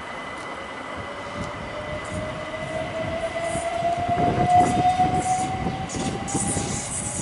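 Train passing on the nearby railway line, its running noise swelling to a peak a little past the middle, with a whine that rises slowly in pitch.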